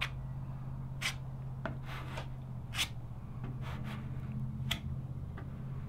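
Bristle chip brush dabbing and stroking thick marine epoxy into gelcoat cracks on a fiberglass canoe hull: a string of short, scratchy brush strokes over a steady low hum.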